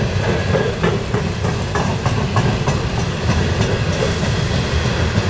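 Coal train hopper cars rolling past close by: a steady low rumble of steel wheels on rail, with irregular clicks and clanks as the wheels cross rail joints.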